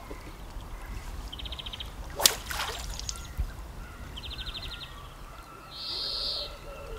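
Fly line being cast, with a single sharp snap about two seconds in, over a faint outdoor background and three short, high, rapid chirping trills.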